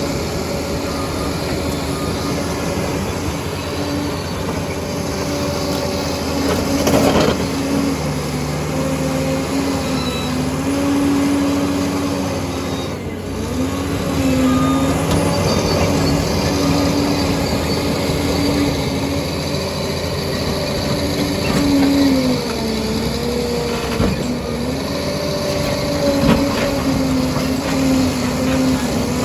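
Liebherr 746 crawler dozer working: its diesel engine runs steadily under load, the pitch dipping and recovering several times as it pushes, with steel tracks clattering and a few sharp clanks.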